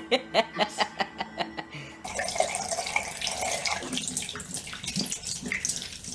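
A fast, even run of sharp clicks, then from about two seconds in, water running from a tap into a sink, splashing over a small monkey being washed under it.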